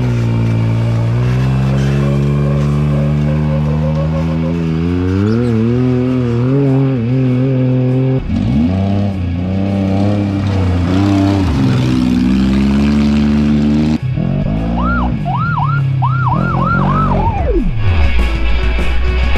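Off-road race vehicle engines running hard as they pass, in several short cuts, their pitch rising and falling. Near the end one engine's revs shoot up and drop back quickly several times in a row.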